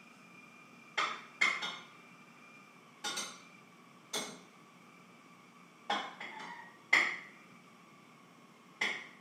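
Household kitchenware struck as percussion: sparse, irregular clinking strikes, some in quick pairs, each with a short metallic ring, the loudest about seven seconds in.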